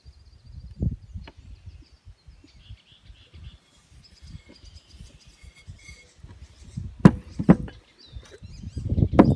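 Wind rumbling on the microphone with faint birds chirping, then two sharp knocks about seven seconds in and a louder rumbling noise near the end.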